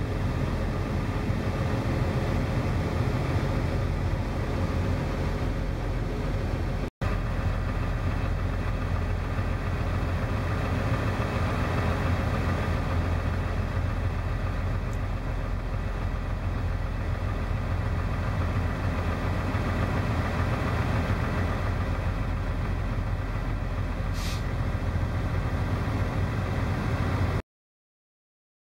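Diesel semi-truck engines running, steady and low-pitched. A short high hiss comes near the end, and the sound stops abruptly just before the end.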